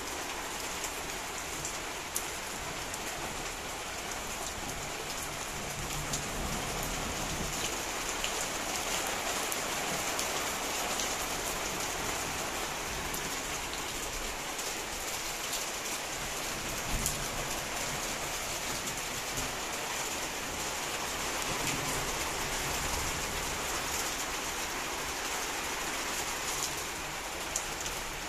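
Steady rain falling, a constant hiss with many individual drops ticking sharply on a surface close by.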